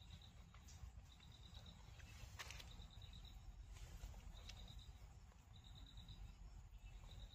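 A cricket chirping faintly in short trills of rapid pulses at one high pitch, repeating about every one to one and a half seconds, over a low rumble, with a couple of brief clicks in the middle.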